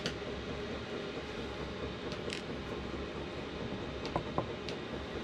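A few light clicks and taps of small metal parts being fitted by hand to a model oscillating steam engine: one at the start, one a little past two seconds in, and a cluster near the end. Under them runs a steady background hiss.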